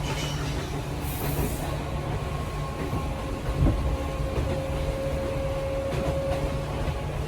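Train running: a steady rumble of the wheels on the track, with a thin steady motor whine that grows a little stronger in the second half.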